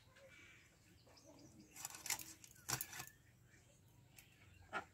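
A few short rasping scrapes about two seconds in, then a single sharp knock, as fish is worked against a blade fixed on a wooden block.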